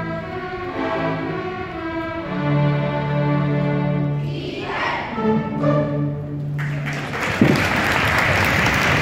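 Student string orchestra of violins, cellos and double basses holding slow closing chords, which end about two-thirds of the way in as audience applause breaks out and carries on.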